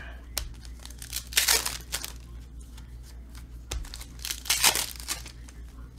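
Foil trading-card pack wrapper being torn open and crinkled by hand, in two loud bursts about three seconds apart, with small clicks of card handling between them.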